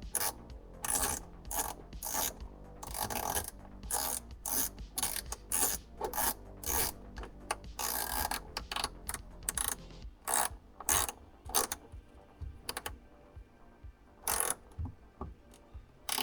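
Hand ratchet wrench clicking through repeated short strokes, dense at first and thinning out over the last few seconds.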